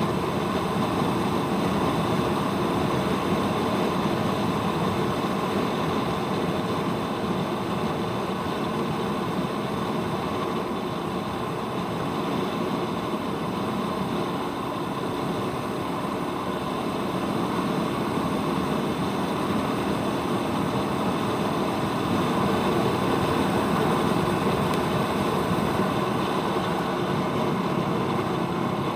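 Royal Enfield Meteor 350's single-cylinder engine running steadily, mixed with even road noise, with no sudden changes.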